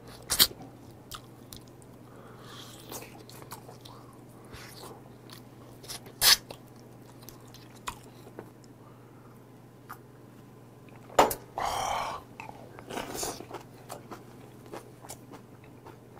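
Close-up eating sounds of a man gnawing and chewing meat off pork neck bones from gamjatang. Wet mouth sounds are broken by scattered sharp clicks, with a louder noisy stretch about eleven seconds in.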